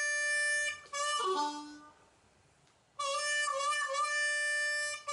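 Diatonic harmonica in C playing a blues lick in second position. Held draw notes, wavering at the bend on hole 4, end in a downward glissando through the draw holes. After a short pause the phrase starts again, its downward slide just beginning at the end.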